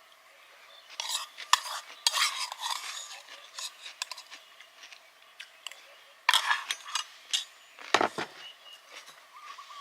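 Irregular metal clinks and scrapes of utensils against cookware, with a duller knock about eight seconds in.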